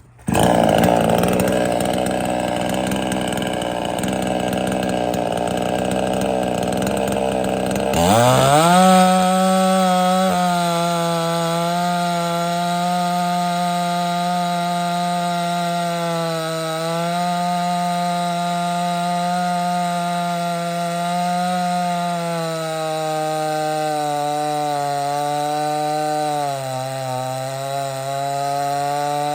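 A 58cc two-stroke chainsaw running at high revs, cutting through red oak. It comes in abruptly with a rough, noisy sound; about eight seconds in it settles into a steady high engine note that sags briefly in pitch now and then as the bar is pushed into the wood.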